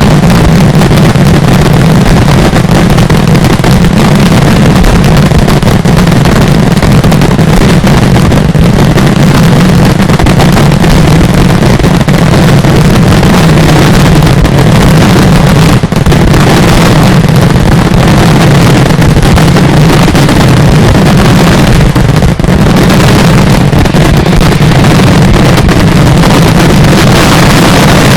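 Daylight fireworks barrage: explosions in such rapid succession that they merge into one continuous, deep, overloaded rumble with no gaps.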